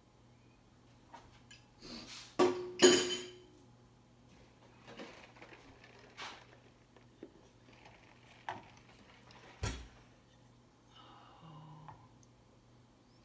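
Kitchenware clinking and knocking: two sharp clanks close together about two and a half seconds in, with a brief ringing, then a few lighter knocks. Near the end a wooden spoon stirs in a metal saucepan. A low steady hum runs underneath.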